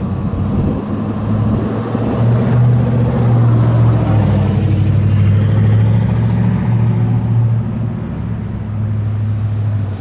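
Federal Signal 2001-SRN outdoor warning siren winding down at the end of its test, its tone falling and running low and steady, with a haze of noise that swells in the middle and eases toward the end.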